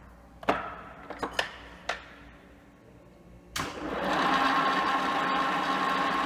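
Dufour 221R milling machine's drive coasting down, then four sharp clicks of its controls during the pause. About three and a half seconds in it starts up abruptly and runs steadily with a whine.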